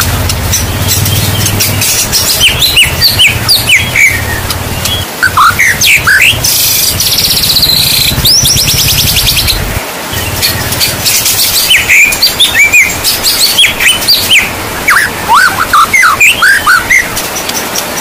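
White-rumped shama (murai batu) singing varied whistled phrases over steady rain, with a fast, high buzzing trill from about six and a half to nine and a half seconds in. A low rumble runs under the first ten seconds or so.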